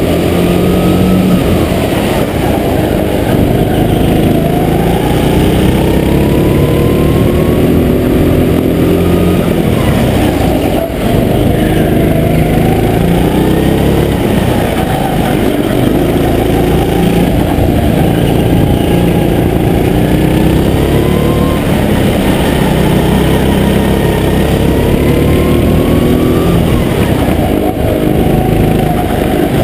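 Go-kart engine running flat out around the track, its pitch repeatedly climbing as it accelerates and then dropping back, every few seconds.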